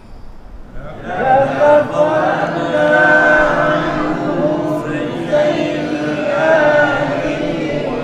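A congregation of men reciting a Quran verse together in chanted unison, many voices overlapping, repeating the verse after the teacher's lead. The group comes in about a second in after a brief pause.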